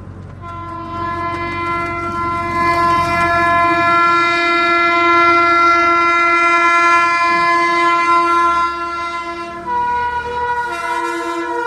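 Indian train's locomotive horn sounding one long, continuous blast over the low rumble of the approaching train. Near the end the horn shifts to a second pitch and begins to slide down as the train draws near.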